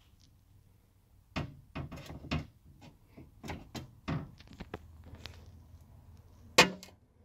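Knocks and clicks of the rear door window glass being handled and worked into an Audi S3 8V door shell with its trim panel off: a quick run of taps starting just over a second in, then one loud sharp thump near the end.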